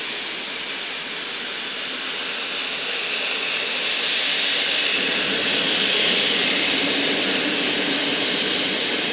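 Passenger coaches of a PKP Intercity train rolling past on a far track: a steady rushing noise of wheels on rails that swells about halfway through.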